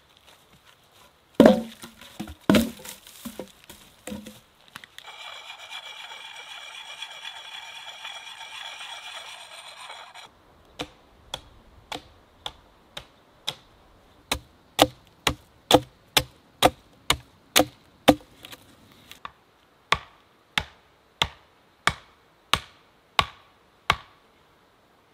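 Wooden poles clunking down onto a log pile, a few heavy knocks, then a steady hiss for about five seconds. After that an axe chops into a small standing tree: a long even run of sharp strikes, about two a second.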